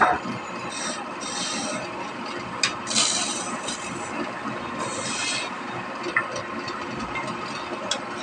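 Wood being worked by hand: repeated rasping, scraping strokes, with a few sharp clicks.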